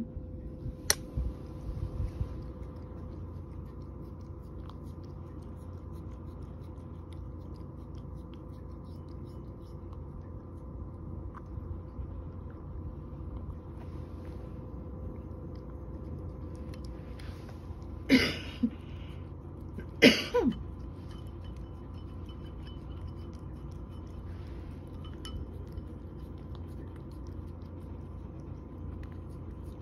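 A cat slowly chewing dry kibble, with sparse faint crunches over a steady room hum. Two short, loud noises come about two seconds apart past the middle.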